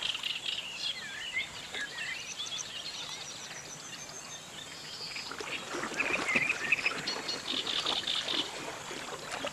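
An African elephant sloshing and splashing in a waterhole, with several birds chirping and trilling over it. The chirping and splashing grow busier about six seconds in.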